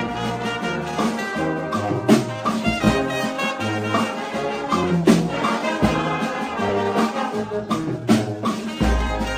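Music with a bass line and a regular beat.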